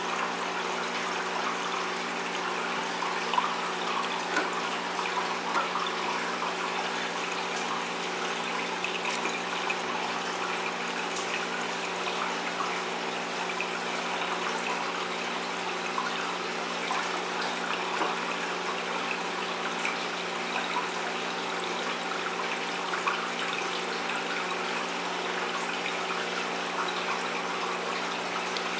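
Aquarium filter water trickling and splashing steadily into the tank, over a steady low hum from the tank's pump.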